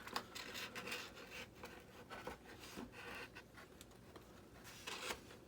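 Faint rubbing and light clicks of hands handling wire leads and parts inside a model jet's opened fuselage, with a sharper click near the end.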